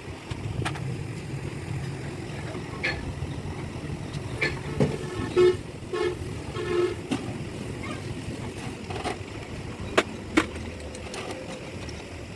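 A vehicle horn gives three short toots about halfway through, over a steady low rumble. Sharp clicks and knocks are scattered through, with two loud ones near the end.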